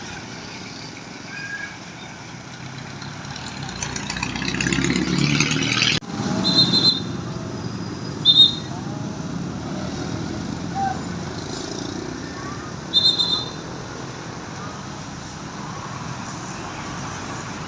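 Roadside traffic with a large bus passing close, its engine and tyre noise swelling for a couple of seconds and then stopping abruptly about six seconds in. Three short, high-pitched horn beeps follow a few seconds apart over the steady road noise.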